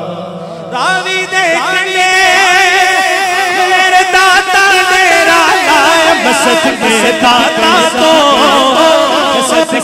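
A man singing a Punjabi naat through a microphone: a loud, ornamented vocal line of wavering, long-held notes that comes in about a second in.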